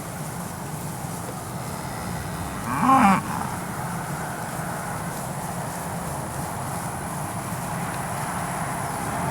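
A steer bawls once, a short call about three seconds in, over steady background noise.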